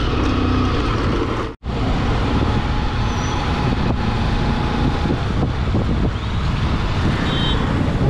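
Motorcycle riding: the engine runs with steady road and traffic noise. The sound cuts out for an instant about a second and a half in.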